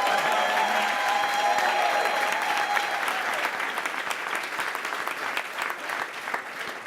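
Audience applauding, with a few steady held tones over the first three seconds. The clapping thins out and fades toward the end.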